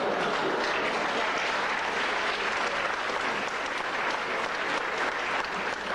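Audience applauding steadily, many hands clapping together, in response to a joke's punchline.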